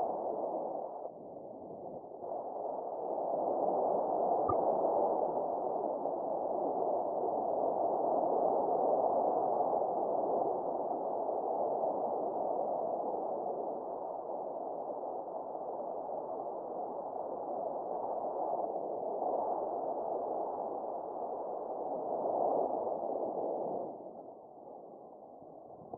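Paragliding variometer beeping its climb tone, a run of electronic beeps whose pitch shifts as the lift changes, signalling that the glider is climbing. It breaks off briefly about a second in and fades near the end.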